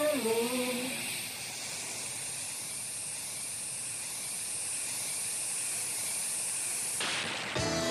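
Lit fuse of a firecracker burning down, hissing steadily for several seconds.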